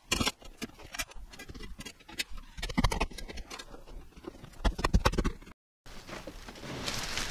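Irregular clicks, taps and knocks of a windscreen cab-blind rail and its fittings being handled and pushed into place at the windscreen pillar inside the van cab. The sound drops out briefly a little over two-thirds of the way through.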